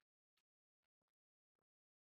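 Near silence, with a few very faint, short clicks.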